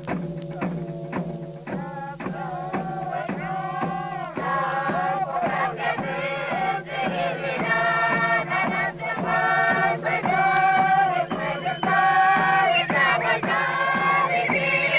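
Papua New Guinea villagers singing together in a chant over a regular beat of about two strokes a second, with a steady low hum beneath. The voices come in about four seconds in and grow louder.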